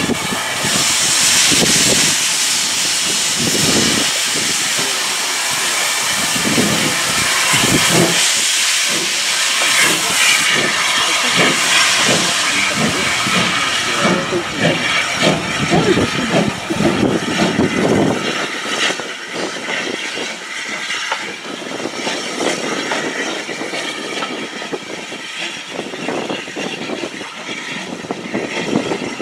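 Steam locomotive hissing heavily as it pulls a train of coaches past, with repeated beats of exhaust and wheels on the rails. The beats thin out after about eighteen seconds, leaving softer hiss and rolling noise.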